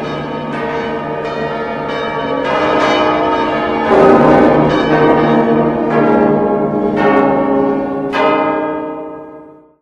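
Church bells pealing, struck one after another at irregular intervals with each stroke ringing on over the others; the peal fades out shortly before the end.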